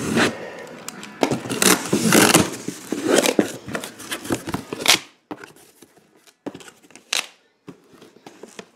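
Cardboard shipping box being opened by hand, its taped flaps torn and pulled back: dense rustling, tearing and scraping of cardboard for about five seconds, then only a few scattered light knocks and rustles.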